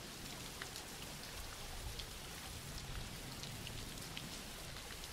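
Background recording of steady rain falling: a soft, even wash of rain with faint ticks of single drops scattered through it.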